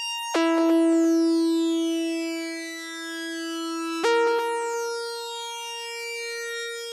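Background music of sustained synthesizer chords, a new chord struck just after the start and another about four seconds in, each slowly fading.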